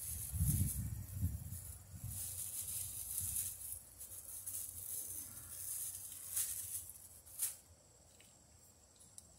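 Insects chirring steadily in the background, with low rustling and bumping handling noise over the first few seconds and two sharp clicks near the end.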